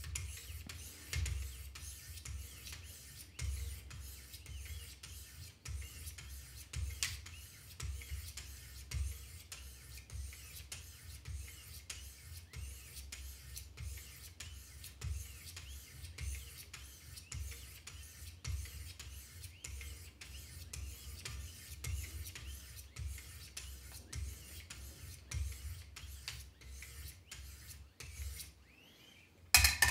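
Knife edge being sharpened on a Wicked Edge guided sharpener with 600-grit stones: quick alternating strokes of the stones along the blade, a rasping rub about twice a second with a dull knock under each stroke. The strokes stop near the end, followed by one sharper knock.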